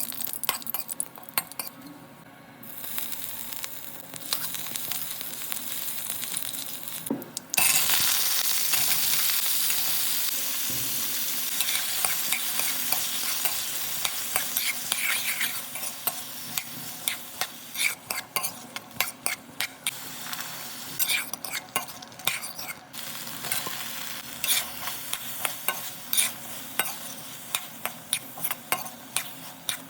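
Food frying in hot oil in a pan while a spatula stirs. A loud sizzle starts suddenly about a quarter of the way through and slowly fades. Through the second half the spatula taps and scrapes against the pan more and more often.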